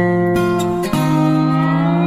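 Guitar music: sustained chords, changing to a new chord about a second in.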